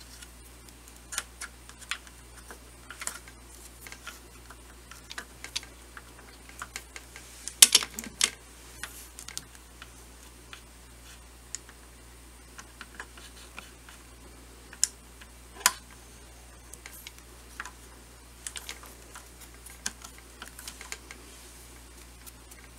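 Scattered small metallic clicks and taps of a pin and bracket being handled and fitted on a reloading press, with the loudest cluster about eight seconds in, over a steady low hum.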